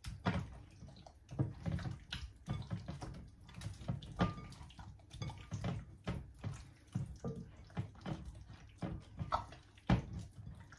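Hands mixing raw chicken pieces coated in oil, salt, pepper and cornstarch in a glass bowl: irregular wet squelches and slaps, several a second.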